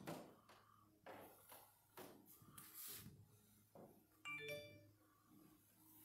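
Near silence in a room, broken by faint scattered knocks and rustles and a brief, chime-like ding about four seconds in.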